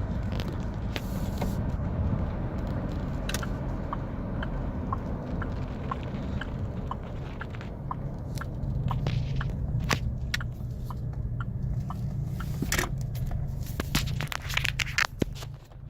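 2009 Chevy Colorado engine idling roughly: a steady low running sound with scattered irregular clicks and crackles. The owner traces the rough idle to a faulty cam phaser (code P0017).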